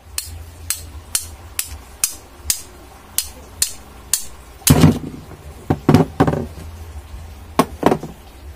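Hammer tapping on the electric fan's metal parts: light, even taps about two a second for four seconds, then a few heavier knocks, the last four in two quick pairs.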